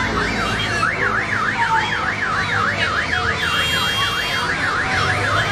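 Electronic siren sweeping rapidly up and down in pitch, about three sweeps a second and quickening slightly, stopping near the end.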